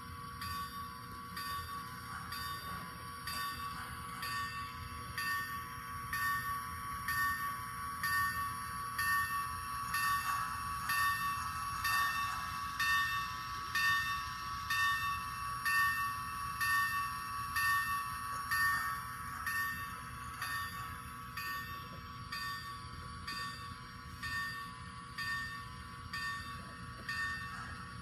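Model steam locomotive running on a layout track: a steady high whine with a regular pulsing beat about twice a second.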